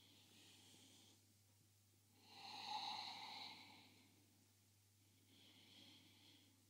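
A woman's soft, slow breaths while she holds a seated forward fold: three breaths, the middle one the loudest.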